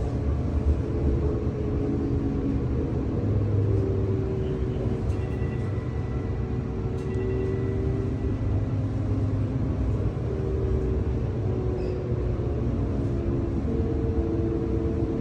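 TriMet MAX light-rail train running, heard from inside the car: a steady rumble with several hum tones that shift and step in pitch.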